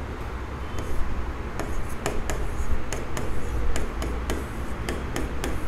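A pen tapping and clicking against a board while numbers are written, in a run of light, irregular clicks over a steady low hum.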